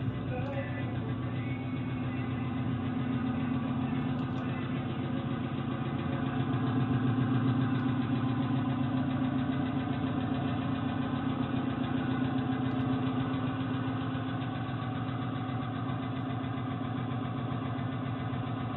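Subaru Brumby's flat-four engine idling steadily, a little louder in the middle; the motor is very knocky, with a head knock, in the owner's words.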